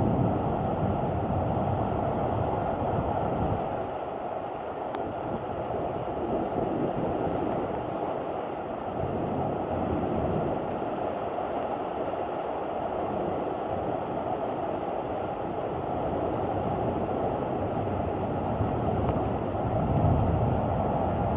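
Severe thunderstorm: a steady rushing of heavy rain and wind, with low rumbles swelling and fading several times.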